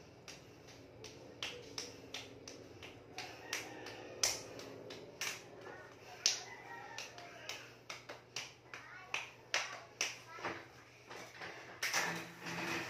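Scattered sharp clicks, two or three a second, over a faint steady hum. Near the end an elliptical cross trainer starts up with a steady rushing, whirring noise as it is pedalled.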